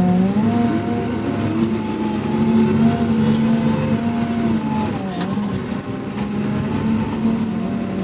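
Wheel loader's diesel engine running, heard inside the cab as the machine drives. The engine note rises about half a second in, eases off around the middle, and picks up again.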